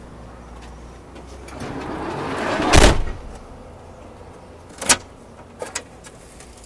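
A van's sliding door rolling along its track and shutting with a loud thud about three seconds in, followed by a few light clicks.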